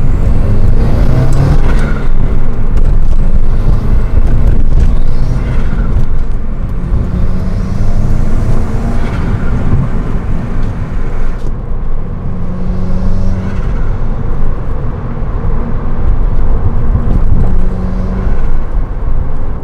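Turbocharged 2.0-litre flat-four of a 2015+ Subaru WRX accelerating hard from a standstill through an Invidia Q300 cat-back exhaust. The revs climb and fall back at each of several gear changes.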